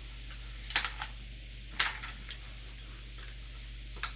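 Gaming-chair casters being pushed into the sockets of the chair's base: a few sharp plastic clicks and knocks, the loudest about two seconds in.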